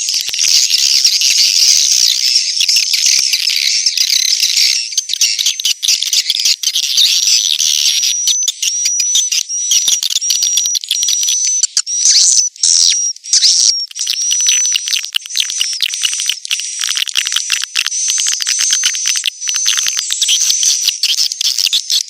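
Edible-nest swiftlets twittering in a dense, fast, high-pitched chatter of adults and chicks, the kind of recording played in swiftlet houses to lure the birds in to nest. From about eight seconds in, a thin high note repeats steadily through the chatter.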